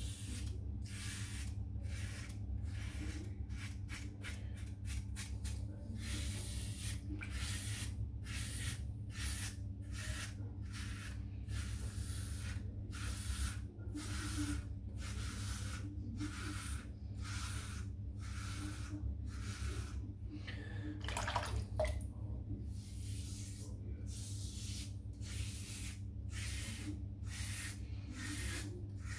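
Leaf razor with three vintage double-edge blades scraping two days' stubble off a lathered scalp, going straight against the grain in short strokes, roughly two a second.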